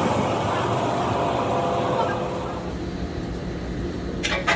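Steady machinery noise in a tire retreading shop, with a faint whine, then a few sharp metal clinks near the end.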